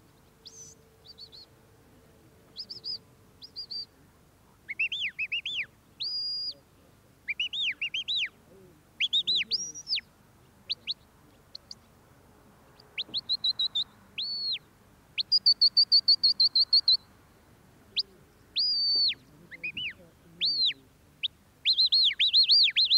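Sheepdog handler's whistle commands to a working Border Collie driving sheep: a series of high, sharp whistled phrases, some sliding up and down in arches, some held on one note, with a fast run of short repeated notes near the middle.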